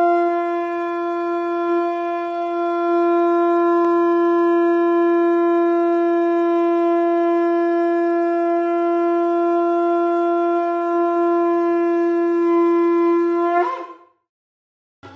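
A shankh (conch shell trumpet) blown in one long, steady note that stops about fourteen seconds in.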